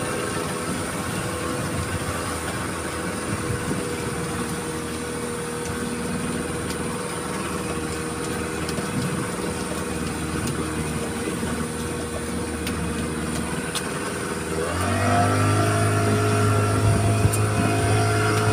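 Small outboard motor pushing an open boat along at a steady cruise. About fifteen seconds in the throttle is opened and the engine rises in pitch and gets louder, then holds at the higher speed.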